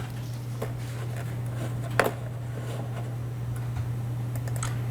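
A few short, sharp clicks over a steady low hum, the loudest click about two seconds in.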